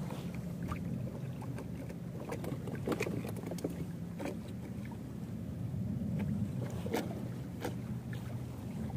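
A small sampan rocking at sea: a steady low wash of water and wind under a faint low hum, with scattered light knocks and clicks on the boat.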